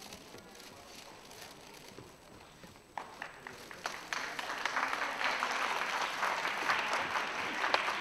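Audience applause in a hall. It begins with a few claps about three seconds in and swells into steady clapping, after a quiet stretch of faint room noise.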